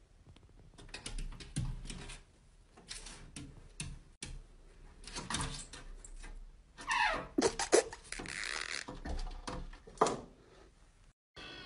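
A cat's paws and claws scrabbling against a window's glass and frame as it climbs, in irregular bursts of scratching with a few sharper taps.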